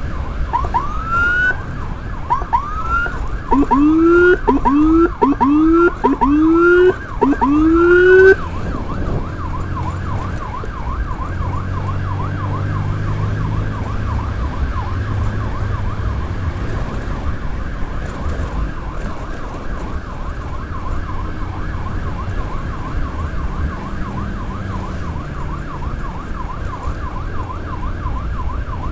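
Motorcycle-mounted Whelen electronic siren sounding short rising whoops about once a second. From about 3.5 s to 8 s a deeper low-frequency hammer tone rises in step with each whoop and is the loudest part. Just after 8 s the siren switches to a fast, continuous yelp-type warble that runs on over the motorcycle's engine and road noise.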